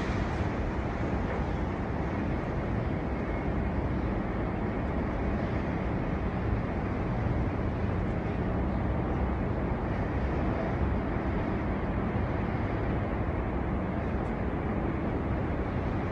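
Storm wind blowing steadily, a dense, unbroken rush of noise heaviest in the low end.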